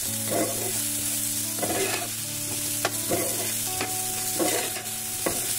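Cubed potatoes and onion frying in oil in a pan, with a steady sizzle, while a spoon stirs them and scrapes the pan in repeated strokes about once a second.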